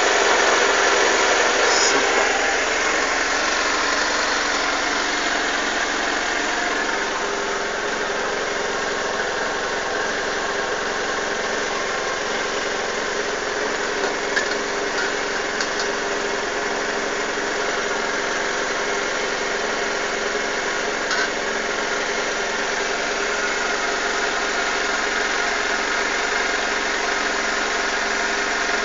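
Suzuki GSX-R600 SRAD's inline-four engine idling roughly, its revs easing down a little in the first few seconds and then holding steady. A few faint clicks come about halfway through and again later.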